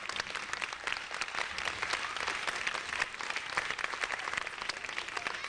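Audience applauding: many hands clapping at once, dense and steady.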